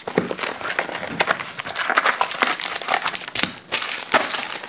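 Crinkling and crackling of plastic wrap and foil trading-card pack wrappers being handled as a box of Panini Crown Royale football card packs is opened and a pack is pulled out, with irregular rustles and sharp clicks.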